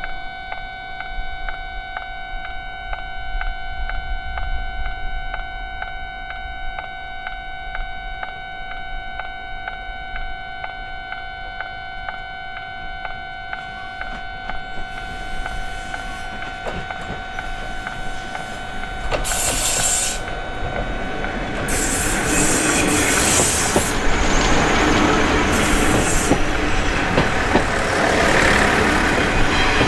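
Japanese level-crossing warning bell ringing in rapid, even dings throughout. A Kominato Railway diesel railcar can be heard approaching from about 14 seconds in, then passes over the crossing with loud wheel-on-rail clatter and high squealing from about 19 seconds in.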